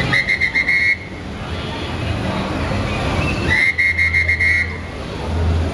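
A traffic police officer's whistle blown in two trilling blasts of about a second each, some three seconds apart. Street traffic runs steadily underneath.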